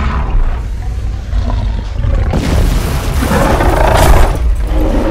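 Dinosaur roar sound effect, swelling up about two seconds in and peaking near the end, over a steady deep rumble.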